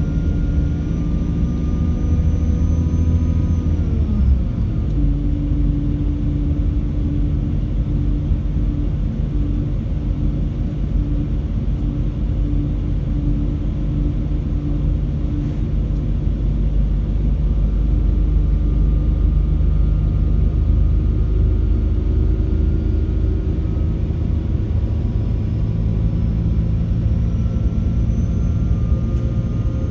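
Class 196 diesel multiple unit's MTU inline-six diesel engine pulling under power, with a high turbocharger whistle over the engine note. About four seconds in, the engine note and whistle drop sharply at a gear change. Over the last several seconds the note builds again and the whistle slowly rises.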